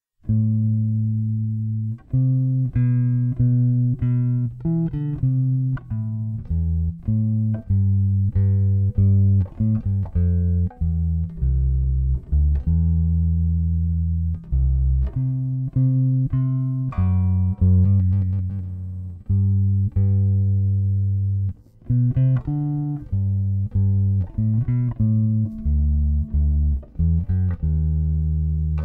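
Solo electric bass guitar with many strings playing a slow adagio melody: plucked notes and chords ring out one after another, with short breaks between phrases.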